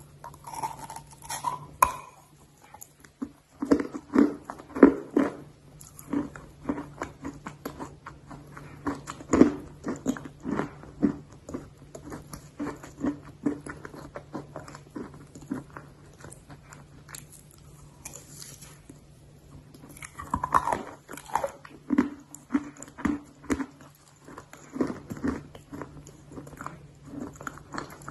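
Close-miked chewing and biting of hard, dry clay: a steady run of sharp crunches, a few each second, with the loudest bites about four and nine seconds in and a quieter stretch past the middle.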